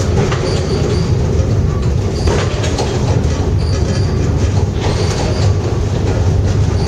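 Pic du Jer cable funicular car running along its rails: a steady loud rumble with a few brief high squeaks from the wheels.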